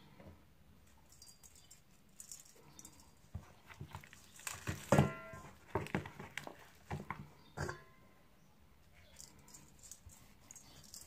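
Hands rubbing and patting seasoning into a raw whole chicken in a stainless steel bowl: irregular soft wet slaps and squelches of skin and meat. The loudest is a knock with a brief ring about five seconds in.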